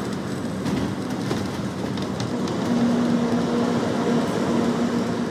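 Inside a moving bus: a steady rumble of engine and road noise with a droning tone that grows stronger about halfway through, and a few light clicks and rattles.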